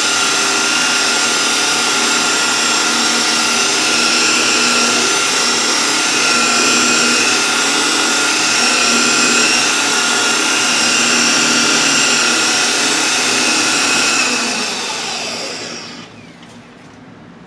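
Rotary polisher with a Lake Country orange foam pad running steadily at medium speed, working scratch-remover polish into car paint. About fourteen seconds in it is switched off and winds down, its whine falling in pitch and fading.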